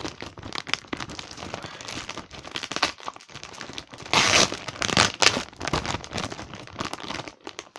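Plastic packaging around a pack of comic books crinkling and tearing as it is pulled open by hand, with a louder stretch of crinkling about four seconds in.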